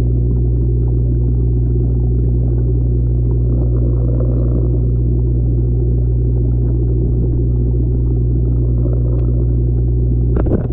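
Steady low electrical hum and rumble of pond pumping equipment, heard through a GoPro submerged in a cichlid pond. A sharp knock on the camera comes near the end.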